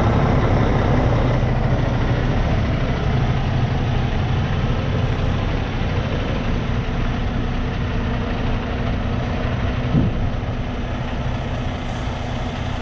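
Semi-truck's diesel engine running steadily, a low even drone with road or cab noise over it.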